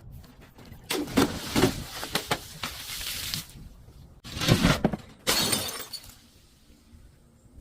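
Glass bottle breaking and crunching into shards: a long crackling stretch, then two more sudden loud bouts, before it goes quiet near the end.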